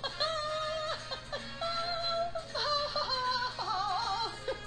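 A high woman's voice singing a cheerful tune on 'ha-ha' syllables, held notes joined by short slides, with a wavering note near the end.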